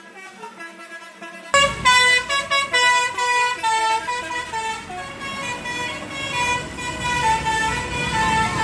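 Indonesian bus 'telolet basuri' musical air horn playing a quick melody of changing notes. It is faint at first, then comes in suddenly and loud about a second and a half in, over engine and street noise.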